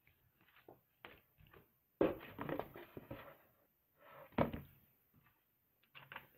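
Rustling and knocks of items being handled and lifted out of a cardboard subscription box, irregular, with a louder stretch of rustling about two seconds in and a sharp knock just after four seconds.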